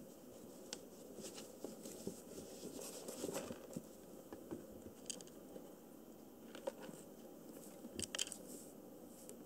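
Faint scattered rustles and light taps, with a cluster of louder taps near the end: a kitten moving about on paper sheets and a plastic bowl.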